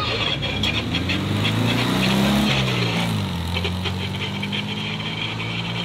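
Air-cooled Volkswagen Beetle flat-four engine driving past, rising in pitch as it accelerates, then dropping a little past halfway and holding steady as it pulls away.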